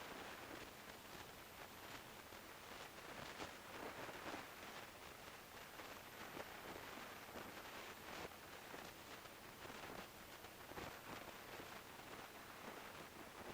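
Faint, even rushing wind and road noise on a camera riding on a moving motorcycle, with irregular brief gusty flutters.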